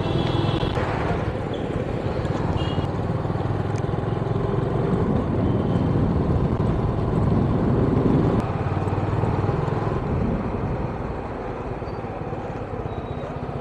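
Motorcycle engine running steadily under way, with road and wind noise; the sound eases off after about ten seconds as the bike slows.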